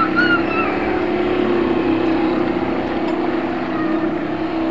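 Small motors of several bumper boats running together, a steady droning hum. Near the start there is a brief high wavering squeal over it.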